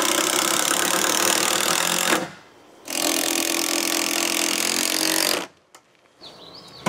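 Cordless power driver driving screws through a wooden angle brace into a picnic table leg, running in two steady bursts of about two seconds each with a short pause between.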